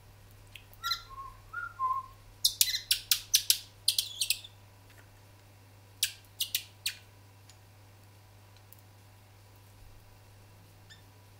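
Captive estrildid finches calling: a few short whistled notes, then a quick run of sharp high chirps, then three more chirps a couple of seconds later.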